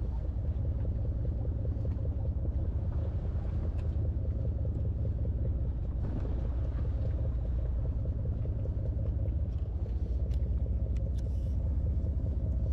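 A sportfishing boat's engine running steadily at sea: a constant low rumble with a steady hum above it.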